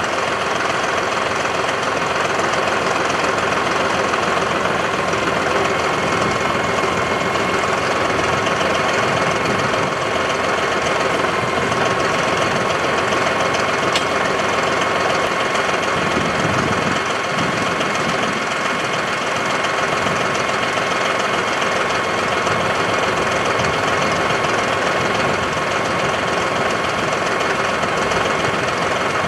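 Compact tractor's engine running steadily at close range, with a steady hum and no change in speed.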